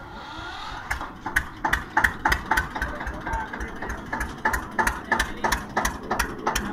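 Tractor's diesel engine running, with a fast, even knock about three times a second over a low rumble.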